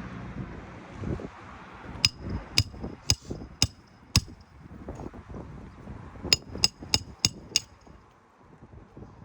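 Hand hammer driving roofing nails into a shingle: five strikes about half a second apart, then after a short pause five quicker strikes, each with a brief metallic ring.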